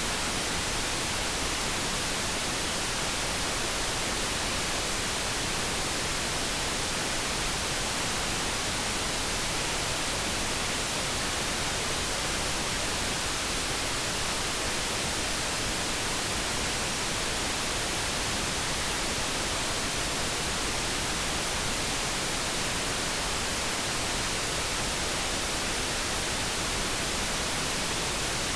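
Steady generated background noise, an even hiss with no tones or changes.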